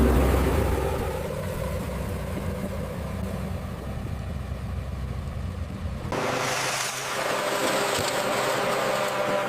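Heavy construction machinery engine running with a low, steady rumble. About six seconds in it cuts abruptly to a different machine sound, lighter in the bass and with more hiss.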